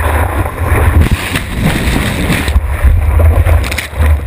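Rushing water and wind buffeting a GoPro mounted on the nose of a surfboard as it is carried along in a breaking wave, with a heavy low rumble. Near the end the sound drops and turns duller as the board and camera go under the water.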